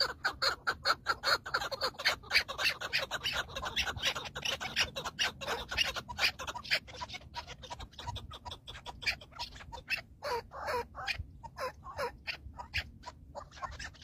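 Chukar partridges calling: a fast run of short repeated notes, several a second, busiest in the first half and sparser after about seven seconds.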